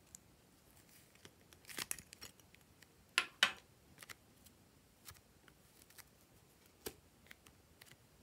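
A striped plastic pumpkin toy being handled and pulled apart in the hands: scattered short scrapes and clicks. The loudest are a crackly rub a little under two seconds in and two sharp scrapes in quick succession about three seconds in.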